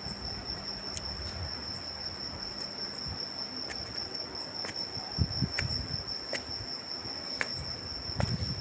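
A cricket's steady, high-pitched trill. A few soft low thumps come about five seconds in and again near the end.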